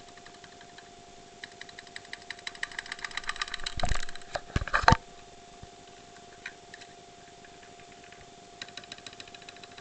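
Computer keyboard typed on hard and fast, the keys slapped down, with bursts of quick clicking and a couple of heavy key strikes near the middle. Then a pause, and the typing starts again near the end. It is recorded through a cheap camera's microphone, with a steady faint tone underneath.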